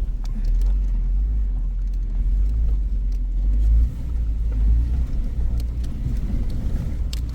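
Suzuki Jimny driving over a rough, rocky off-road track: a steady low engine and road rumble that eases somewhat about four seconds in, with a few light knocks.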